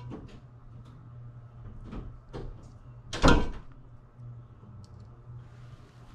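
A metal spoon and a stainless steel saucepan clinking lightly as sauce is spooned onto a plate, with one loud knock about three seconds in. A low steady hum runs underneath.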